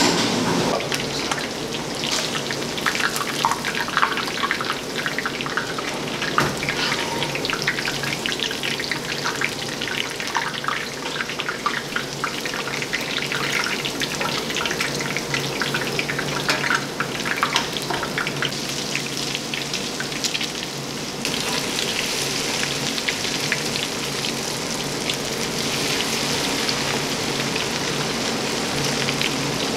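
Breaded lobster pieces deep-frying in hot oil: a steady sizzle dotted with many small pops and crackles, turning about two-thirds of the way through to a denser, steadier hiss.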